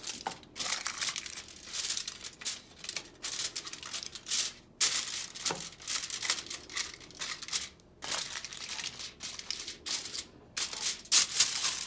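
Aluminum foil crinkling and crackling as hands press and crimp it into a glass baking dish: an irregular run of crackles with two short pauses.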